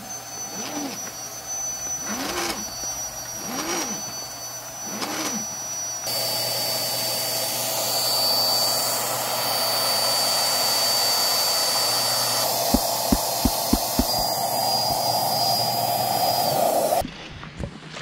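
Electric air pump running with a steady high whine over rushing air, inflating an air mattress. It is quieter for the first few seconds, then louder, with a few sharp clicks shortly before it cuts off suddenly near the end.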